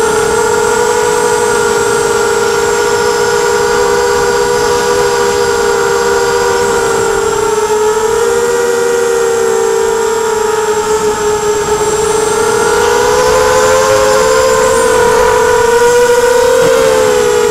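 Quadcopter's electric motors and propellers whining in flight, several close pitches at once that drift up and down with throttle, growing slightly louder and higher in the last few seconds.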